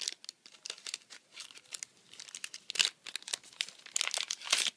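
Crinkly paper wrapping around a bar of handmade soap rustling and crackling as it is handled and unwrapped by hand. The crackles are irregular, with louder bursts about three seconds in and again just before the end.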